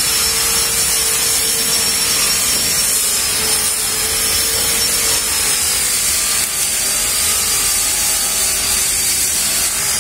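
Steady mechanical whir from a running motor, with a constant low hum and a thin high whine that hold level throughout.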